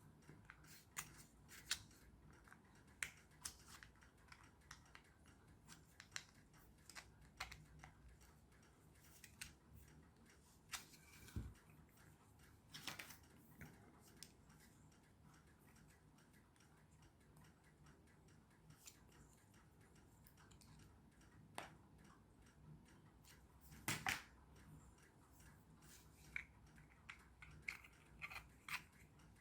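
Faint, irregular small clicks and scrapes of a hand tool trimming and cleaning out a hole in a 3D-printed plastic part, with a louder pair of clicks about two-thirds through and a quicker run of ticks near the end.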